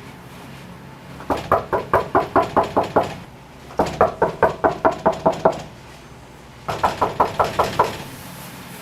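Someone knocking hard and fast on a door in three bursts of about seven to ten knocks each, a short pause between bursts.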